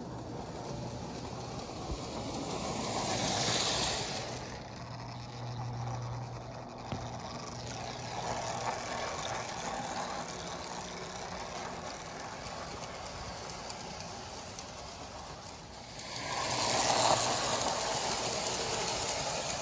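Lionel O-27 Santa Fe Warbonnet electric toy train running on three-rail track: a steady hum with the wheels rattling over the rails, growing louder twice as the train passes close by, about three seconds in and again near the end.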